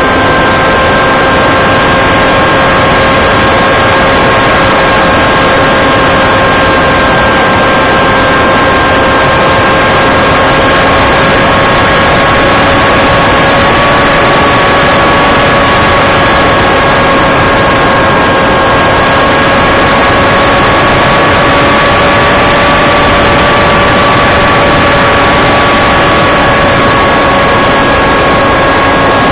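Steady drone of a small aircraft's motor and propeller picked up by an onboard camera, with heavy wind rush over the microphone. A constant whine runs through the noise and creeps slightly up in pitch.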